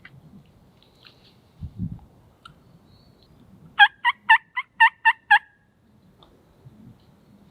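A series of seven short, sharp wild turkey yelps, about four a second, after a low thump about two seconds in.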